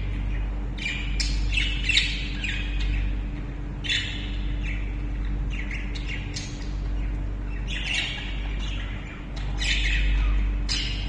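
Caged pet birds, a budgerigar among them, calling in short squawks and chirps, a dozen or so at irregular intervals, over a steady low hum.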